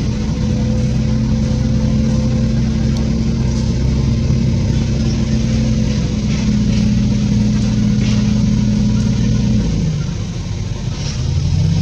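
An engine running steadily; near the end its pitch and level drop for a moment, then rise again.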